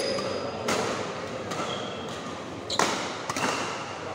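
Badminton rackets striking a shuttlecock during a rally: three sharp hits, about a second in, near three seconds in and again just after, over the steady murmur of a sports hall.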